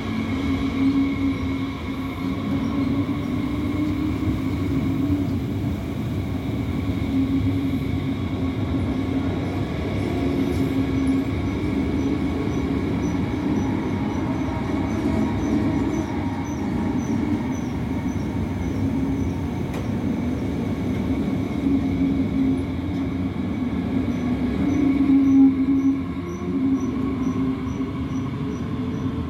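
Bombardier/Alstom ET 422 S-Bahn electric multiple unit, two coupled sets, pulling out along the platform: a steady electric drive hum over wheel and rail noise, with a whine rising in pitch over the last few seconds as the train gathers speed.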